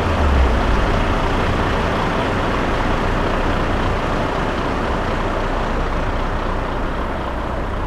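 Heavy truck engine running steadily, a low rumble that is strongest in the first second and then holds even.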